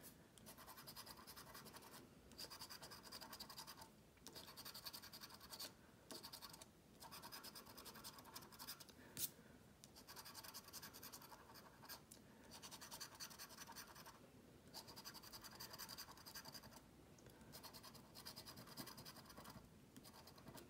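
Coin scratching the coating off a scratch-off lottery ticket: faint rubbing in a series of short spells of one to two seconds with brief pauses between, as one spot after another is uncovered. One sharp click about nine seconds in.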